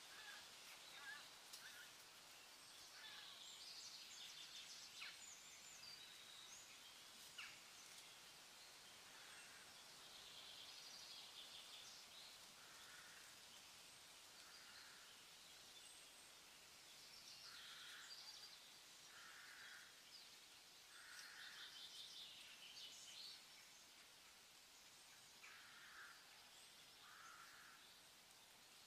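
Faint birds chirping and calling, short repeated calls every second or two over a low steady hiss, with a couple of sharp clicks.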